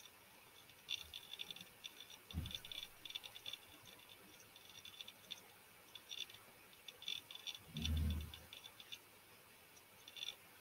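Faint, irregular clicking and rattling in small clusters, with a soft low thump about eight seconds in.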